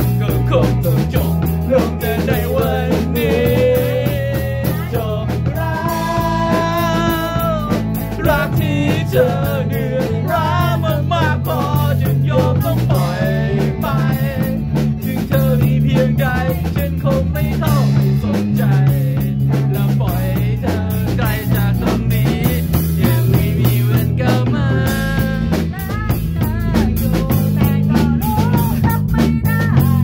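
Rock band playing live: an electric guitar plays a bending, wavering melody over bass guitar and a drum kit with cymbals, with no sung words.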